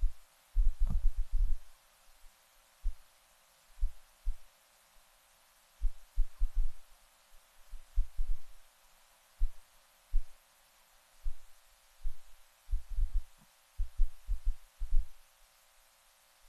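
Irregular low thuds of footsteps and shifting chairs on a hollow wooden floor, in clusters of one to several knocks every second or so.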